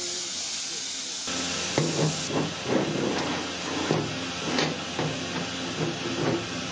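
Steam hissing from a standing Southern Railway West Country class steam locomotive, 34007 Wadebridge. From about a second in, irregular metallic clanks and knocks sound over the hiss.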